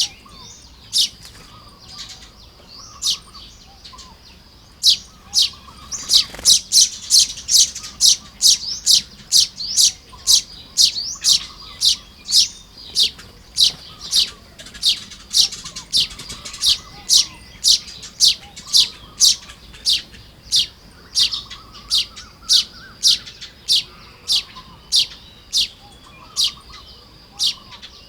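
Baya weavers (common weavers) calling while building nests: a long series of short, sharp, high chips, sparse for the first few seconds and then about two a second, with fainter chattering beneath.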